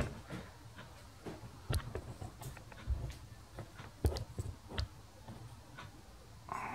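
Handling noise from a camera being picked up and repositioned: scattered light clicks and several dull knocks. Near the end a steady hum starts.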